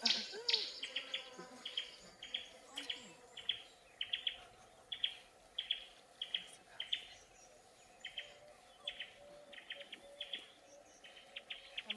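Bush ambience: a high chirp made of a quick cluster of clicks, repeated about twice a second, over fainter wavering calls lower down.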